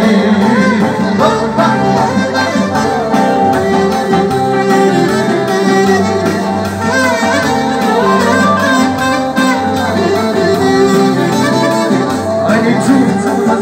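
Live Albanian folk dance music from a small band: a clarinet leads a wavering, ornamented melody over keyboard and a steady beat.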